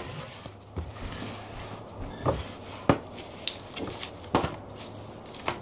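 Sheets of cardboard being picked up and handled: a handful of separate knocks and scuffs, the clearest a little under 3 s and about 4.5 s in, over a low steady hum.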